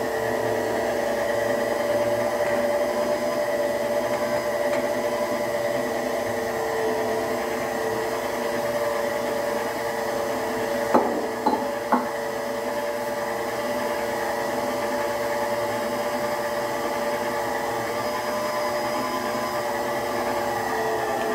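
Electric stand mixer running steadily with a constant whine as it mixes flour, egg and water into pastel dough. About halfway through come three sharp knocks in quick succession.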